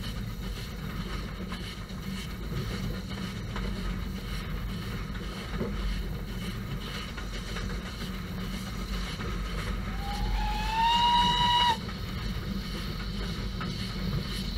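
Steam locomotive whistle sounding once for nearly two seconds about ten seconds in, rising slightly in pitch and cutting off sharply, over a steady low rumble of the moving train.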